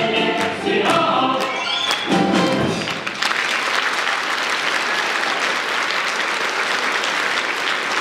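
The closing bars of a song, with voices and a Russian folk-instrument orchestra ending on a final chord about three seconds in, followed at once by steady audience applause.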